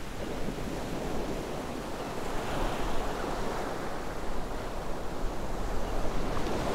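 Ocean waves washing on a shore, a steady rushing with gentle surges.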